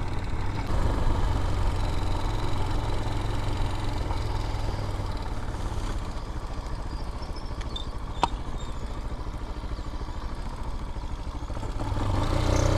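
Vitacci BSR Raven 250 dirt bike's air-cooled 250cc engine running steadily at an easy pace, growing a little louder near the end. A single sharp click comes about eight seconds in.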